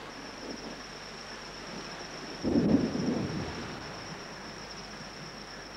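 Steady rain on the rainforest, with a rumble of thunder about two and a half seconds in that fades over a second or so. A high, steady insect trill runs underneath.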